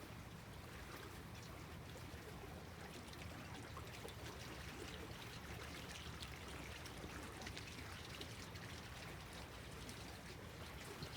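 Small lake waves lapping gently at the shore: a steady, faint wash and trickle of water.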